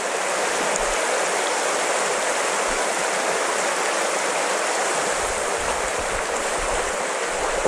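Shallow stream rushing over stones in a riffle: a steady, even rush of water.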